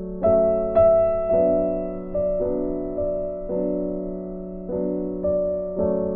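Background piano music: soft keyboard chords struck about once a second over a held low note.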